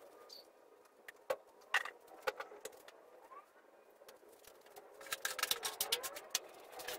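Scattered light clicks and knocks of parts and tools being handled, turning into a denser clattering rattle over the last two seconds.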